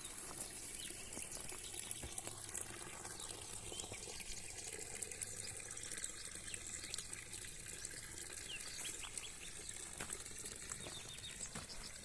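Quiet outdoor farm ambience: scattered small bird chirps over a steady high-pitched hiss.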